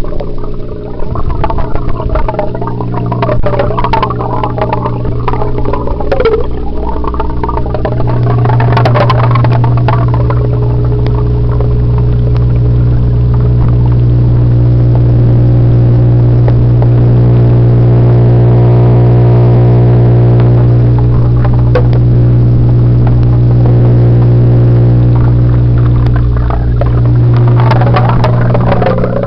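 Steady low electric hum with a stack of even overtones, heard with the camera submerged in an aquarium's water. Irregular shifting water sounds lie over it for the first several seconds and again near the end.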